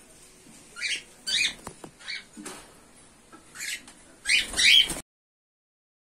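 Cockatiels in a colony calling: a string of short chirping calls one after another, loudest near the end, with a faint tap about a second and a half in. The sound cuts off suddenly about five seconds in.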